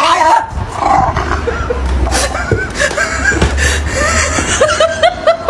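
A dog whining in short rising whimpers, which come more often toward the end.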